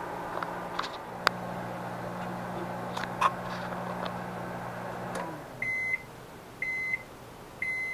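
Oster microwave oven running with a steady hum, which shuts off about five seconds in. Its end-of-cycle beep then sounds three times, about one a second, signalling that the heating cycle has finished.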